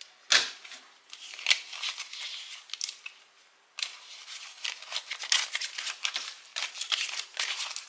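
US paper banknotes ($20 bills) being handled and sorted by hand: a run of crisp, short paper rustles and crinkles, with the sharpest snap of the paper about a third of a second in.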